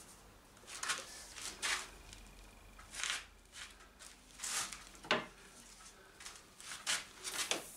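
A string of short rustles and wet dabbing sounds as a thin white oak strip is handled and wetted by hand before it is bent on a hot bending iron.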